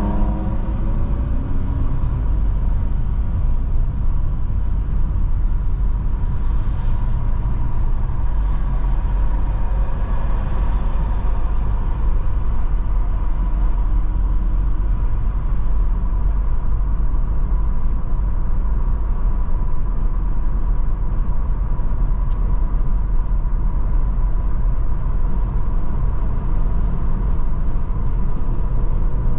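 Car driving along a road, heard from inside the car: steady low engine and road rumble, with a thin steady whine throughout.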